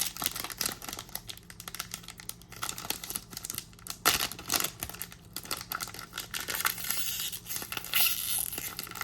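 Foil trading-card pack being torn open and crinkled by hand, with irregular crackling and sharper rips, the loudest about four seconds in.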